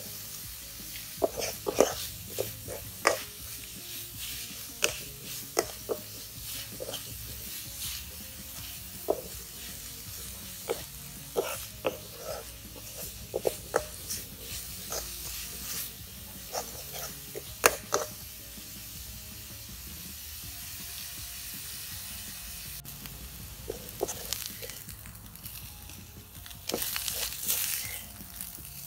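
Spoon scraping and clicking against a metal wok as winged beans with grated coconut are stir-fried dry, over a steady sizzle. Near the end comes louder scraping as the mixture is scooped out of the pan.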